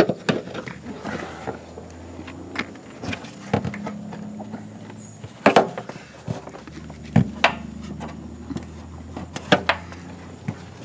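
Scattered sharp clicks and knocks of a hand nut driver and small metal hose-clamp parts being handled and set down, about ten in all, over a steady low hum.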